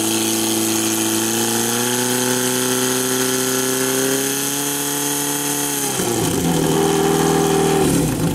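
Portable fire pump's engine running at high revs, pushing water through the attack hoses, its pitch creeping slowly up. About six seconds in it is throttled down sharply, and it drops once more near the end.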